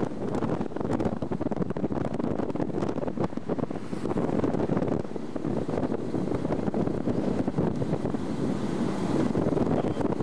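Wind buffeting a camcorder microphone held out of a moving car, with the car's running and road noise underneath.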